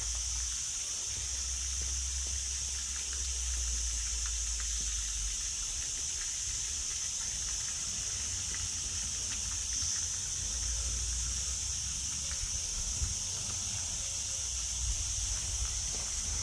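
Insects buzzing in one steady high pitch, over a low rumble of wind on the microphone.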